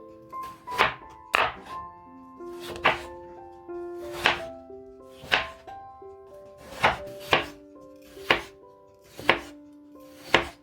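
Knife chopping on a cutting board, about ten separate strokes roughly a second apart, over background music with held notes.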